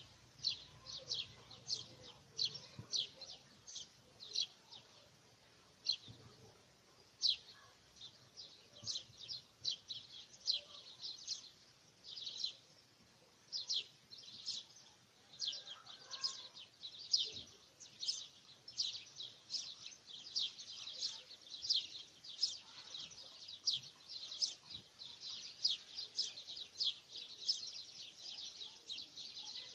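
Small birds chirping: many short, high chirps repeating irregularly, a few each second.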